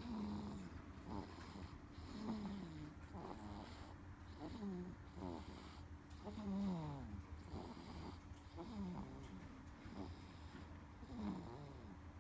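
Snoring of a six-week-old asleep: a squeaky note that slides downward with each breath, repeating about every second or so.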